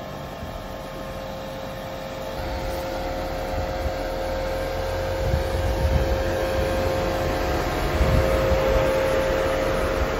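2024 INEOS Grenadier Fieldmaster crawling slowly down a rough dirt slope and passing close by. Its engine runs at low speed with a steady whine, getting louder as it nears, with a low rumble from the tyres over dirt and rock.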